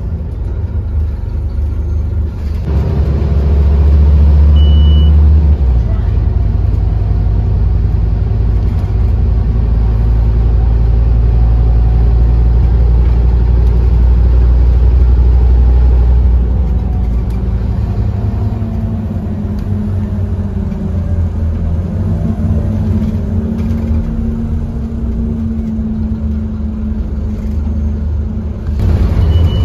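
Scania OmniCity double-decker bus's diesel engine heard from inside the passenger saloon, pulling and running along the road, louder from about three seconds in and easing off around halfway. A short high beep sounds about five seconds in and again near the end.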